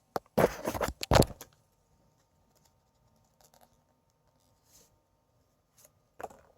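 Foil playing cards and their box being handled, a burst of rustling and clatter lasting about a second, then near quiet, with another short rustle near the end.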